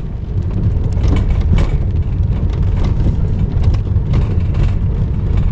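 Car driving on a wet road, heard from inside the cabin: a steady low rumble of engine and tyres, with a few short clicks.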